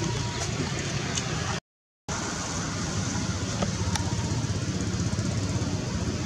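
Steady outdoor background rumble and hiss, broken by a complete dropout of about half a second near the two-second mark.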